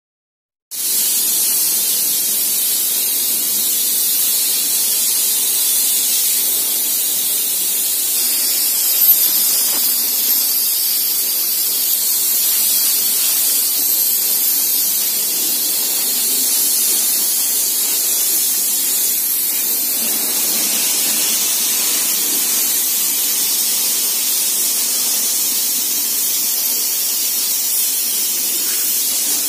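High-pressure water jet from a pressure-washer lance hissing steadily as it sprays the metal of a JCB 3DX backhoe loader. It starts about a second in, with one brief louder burst about nine seconds in.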